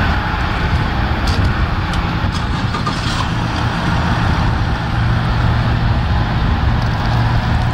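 Yamaha 150 outboard motor idling steadily, a constant low hum.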